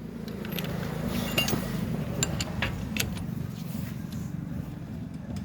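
An engine running steadily at a low, even hum, with a few sharp metallic clinks of hand tools and sockets over it.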